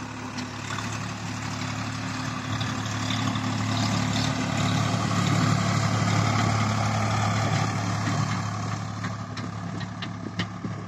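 Swaraj 855 tractor's three-cylinder diesel engine running steadily under load as it pulls a laser land leveller, growing louder as it passes close about halfway through and fading as it pulls away.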